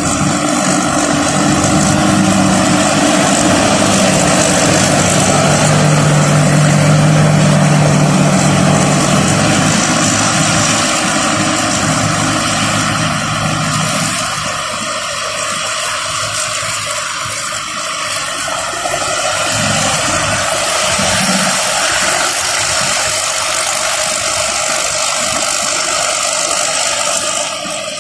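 Rice combine harvester running, a loud steady machine noise of engine and working machinery. A low engine hum is strongest in the first half and eases off about halfway through, while the rest of the mechanical noise carries on.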